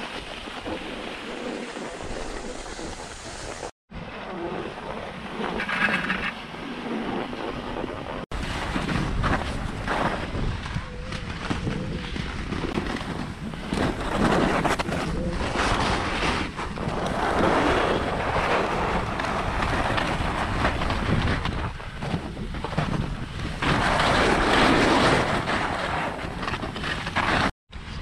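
Wind on the microphone, then skis carving through soft snow in repeated swelling swishes, one surge per turn, louder from about eight seconds in.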